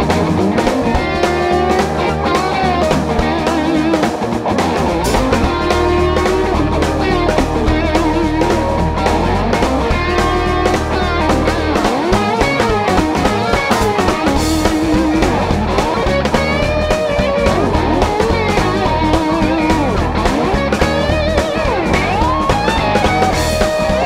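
Live rock band playing a song: electric guitar with bending, wavering lines over a drum kit and bass, at a steady loud level.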